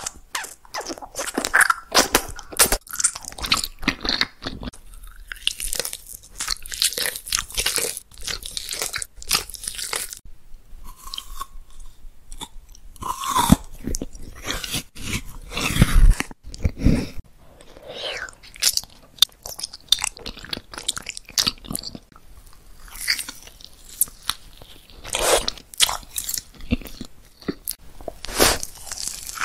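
Close-miked eating: many sharp crunching bites and chewing on candy, with a short lull about ten seconds in.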